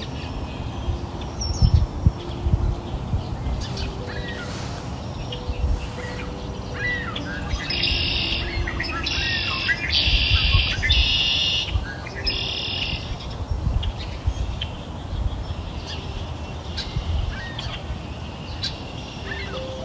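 Birds chirping and calling, with a run of rapid high trills about eight to thirteen seconds in.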